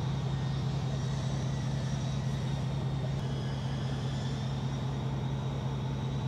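Ford F-250 Super Duty's diesel engine idling steadily, heard from inside the cab, with an even low pulse under a constant hum.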